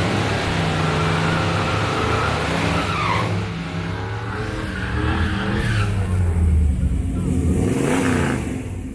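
Drag-racing cars under full throttle on the strip, engines rising and dropping in pitch as they run. A nearby engine's low rumble grows louder in the second half.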